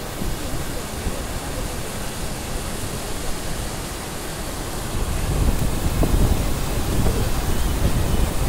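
Floodwater pouring over the crest of a low weir in a steady rush, with wind on the microphone, heavier from about five seconds in.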